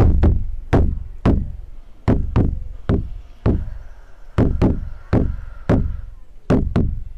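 A drum beaten in a slow heartbeat-like rhythm, about two to three strikes a second, several of them in quick pairs. Each beat is a sharp hit with a deep boom that drops in pitch as it fades.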